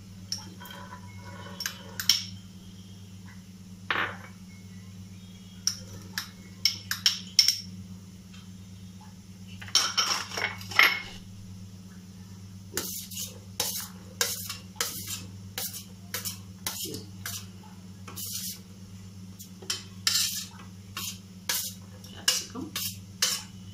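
Utensils and a steel plate clinking and scraping against a pot as chopped vegetables are tipped into salted water for blanching: a few scattered clinks at first, then rapid, almost continuous clinking through the second half. A steady low hum lies underneath.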